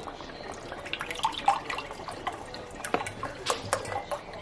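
Beef stock being poured into a Dutch oven of stew, splashing and dripping irregularly.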